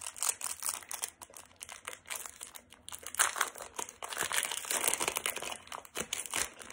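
Foil wrapper of a Pokémon card booster pack crinkling and tearing as it is pulled open by hand, in irregular crackly spells.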